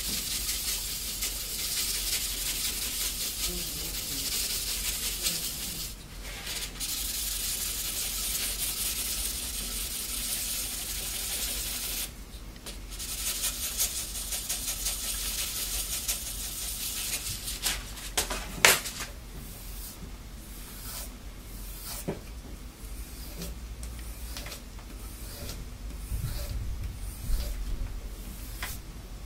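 Steel knife blade stroked by hand across 1200-grit sandpaper on a soft backing to convex the edge: a continuous dry scraping hiss, pausing briefly about six and twelve seconds in. From about nineteen seconds in it breaks into separate, quieter swipes, with one sharp click just before.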